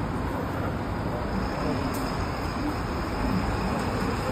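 Steady hum and rumble of a streetcar standing at a stop with its door open, with faint voices of passengers boarding.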